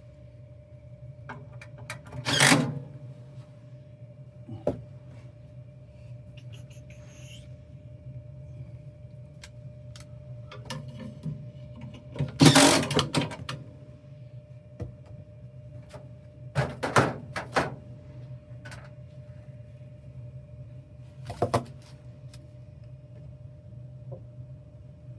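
Four loud knocks and clatters of objects being handled, over a steady low hum with a faint high tone.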